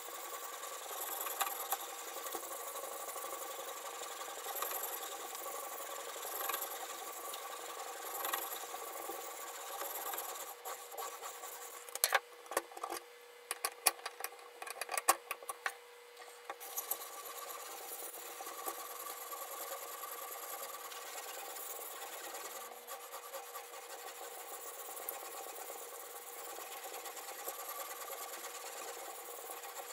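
A sharpening stone on a guided rod rubs back and forth along a kitchen knife blade in steady strokes, swelling about every two seconds. About twelve seconds in the rubbing stops for a few seconds of sharp clicks and knocks as the knife is turned over in the sharpener's rotating clamp, then the stone strokes start again.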